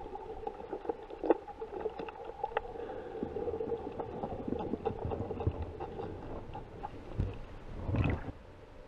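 Underwater sound: a steady hum, a boat motor carried through the water, with scattered clicks and crackles. A brief rush of water noise comes about eight seconds in.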